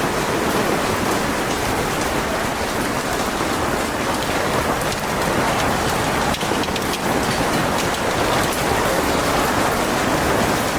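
Heavy rain falling steadily, a dense hiss of drops with fine pattering on hard surfaces.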